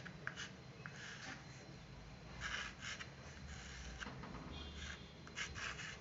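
Chalk scratching on a small chalkboard as letters are written: a series of short, faint scratchy strokes with brief pauses between them.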